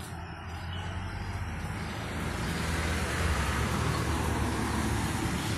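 A road vehicle driving past, its engine and tyre noise swelling to a peak about three to five seconds in and then easing off.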